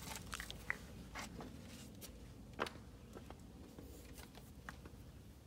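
Faint, scattered small taps and clicks of objects being handled at a table, the clearest about two and a half seconds in.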